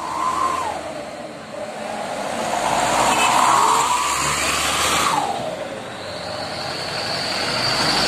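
Trucks passing close on a road, engine and tyre noise swelling to a peak midway and then dropping in pitch as one goes by. A steady high whine comes in from about six seconds.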